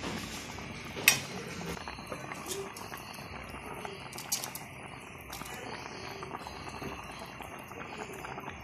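Fish and ginger broth simmering in a pan: a steady bubbling, with one sharp click about a second in.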